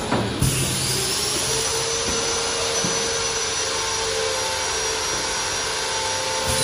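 An air fryer paper liner forming machine running with a steady whooshing hiss and a thin whine. The whine starts suddenly about half a second in, rises briefly, then holds a steady pitch.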